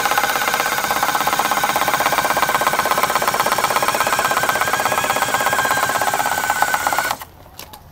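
iRobot Looj 330 gutter-cleaning robot running in a metal gutter, its electric motor spinning the auger in a steady whirr with a fast rattling beat. It cuts off abruptly near the end.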